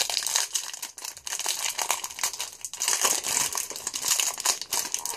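Wrapper of a pack of football trading cards crinkling and tearing as it is pulled open by hand: a dense run of crackles.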